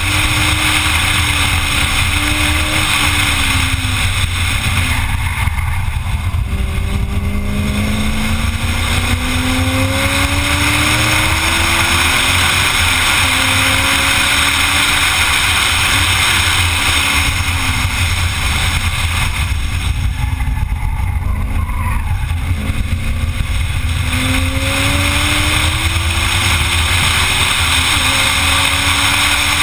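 A car lapping a race track at speed: steady wind rush over the microphone, with the engine note repeatedly climbing as it accelerates and dropping back at each shift or lift.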